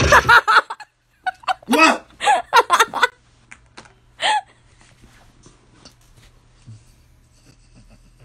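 A loud droning sound stops within the first half second. A man then gives a string of short, sharp vocal sounds between about one and three seconds in, and one more around four seconds, over a faint low hum.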